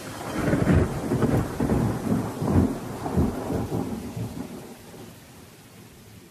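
Thunder rumbling in a series of low rolls over steady rain, fading away over the last couple of seconds.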